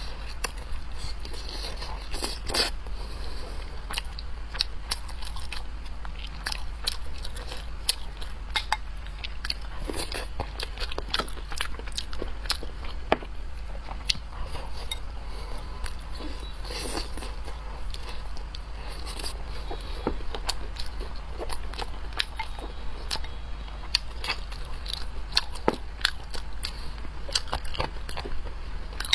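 A person biting and chewing food close to the microphone, with many small crunching and crackling clicks throughout, over a steady low hum.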